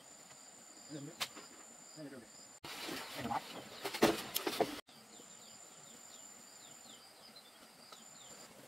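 Insects droning on one steady high note, with rows of short falling chirps. For about two seconds in the middle a louder stretch of knocks and clatter cuts in and stops abruptly.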